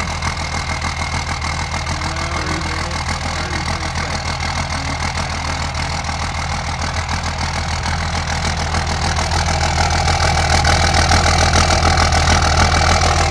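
2001 24-valve Cummins 5.9 L inline-six turbodiesel idling steadily just after a cold start at 12 degrees. It grows louder over the last few seconds, heard close to the exhaust tip.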